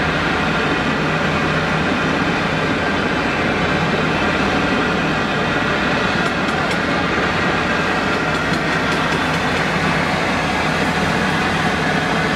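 A steady, loud mechanical roar that holds even throughout, with no breaks.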